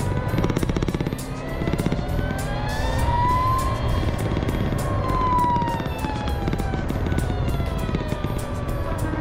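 Onboard riding sound of a motorcycle: steady wind and road rumble, with a whine that rises in pitch as the bike accelerates, peaks after a few seconds, then falls again as it eases off.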